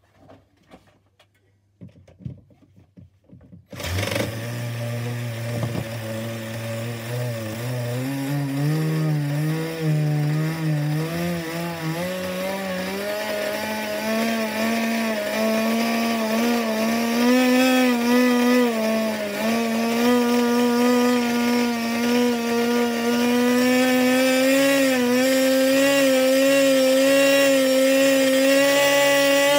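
Pro .15 two-stroke nitro glow engine starting abruptly about four seconds in and then running on the bench. Its revs climb unevenly at first, then settle into a steadier, slowly rising high note.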